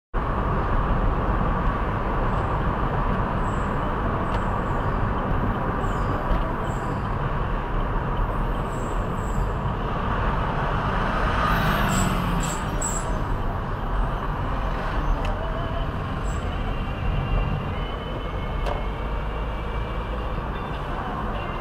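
Steady rumble of road and engine noise inside a moving car's cabin, with a few faint clicks.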